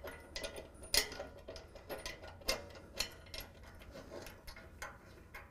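Faint, irregular metal clicks and ticks of a steel bolt and washer being handled and threaded by hand through the bumper bracket and frame into a bolt plate. A few sharper clicks stand out about a second in and again around two and a half to three seconds in.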